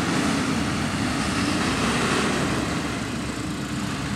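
Several large Claas tractors' diesel engines running together, a steady mechanical hum with a broad rushing noise over it.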